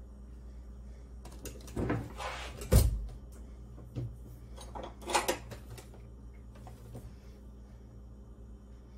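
Metal kitchen utensils clattering in an open drawer as a hand rummages through its plastic baskets for a spoon: a few short rattles and knocks in the first half, the sharpest a little under three seconds in.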